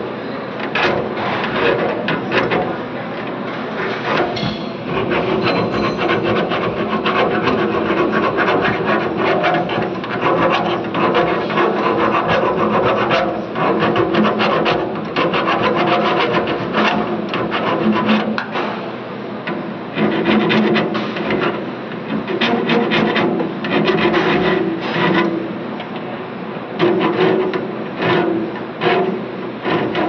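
Continuous close-up rasping and rubbing as hands grip and work the foam-insulated copper refrigerant pipe at its brass flare-nut joint on a window air conditioner.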